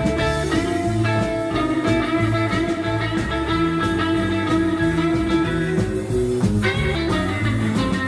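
Live band playing a rock and roll instrumental passage, with guitar over bass and drums.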